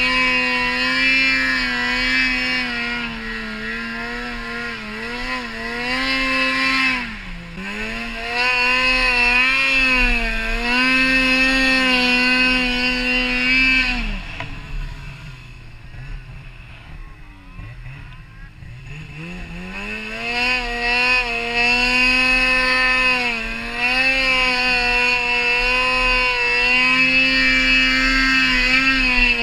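Snowmobile engine running at high revs, its pitch dipping briefly a few times as the throttle is eased. About halfway through it drops away to a low, quieter running for several seconds, then climbs back up to high revs.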